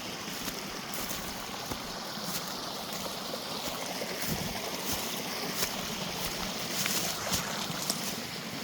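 Steady rushing of a mountain creek, with scattered short clicks and crackles that come more often in the second half.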